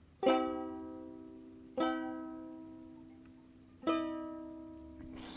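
Ukulele strummed three times, one chord at a time, each chord left to ring and fade before the next, about two seconds apart.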